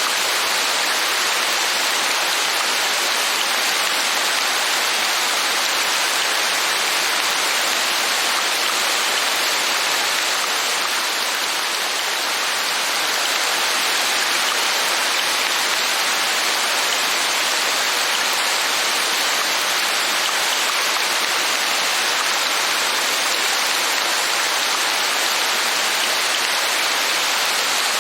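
Steady rain: an even, continuous hiss with no single drops or other sounds standing out.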